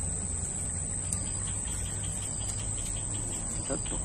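Insects calling in a steady, high, even drone over a low, steady rumble.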